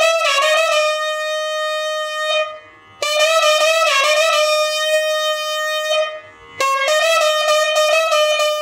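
Nadhaswaram, the South Indian double-reed pipe, played solo in a Carnatic melody. Notes are held and slide and bend in pitch, in three phrases with two short pauses between them.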